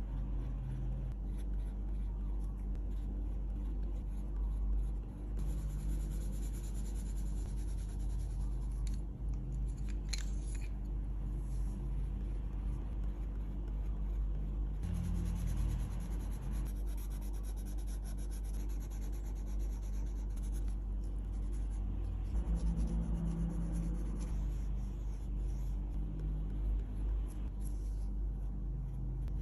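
Colored pencil scratching back and forth on paper as it shades in a drawing, over a steady low hum.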